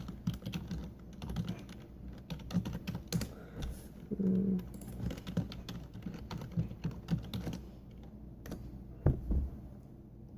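Typing on a computer keyboard: irregular runs of key clicks with short pauses between them. A single louder thump comes near the end.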